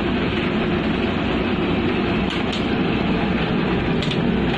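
Ship's machinery running: a loud, steady low drone.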